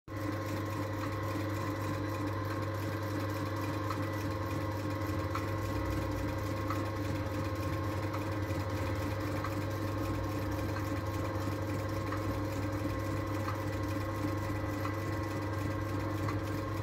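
Flatbed sewing machine running steadily as it stitches a leather boot upper, its motor humming at an even pitch throughout.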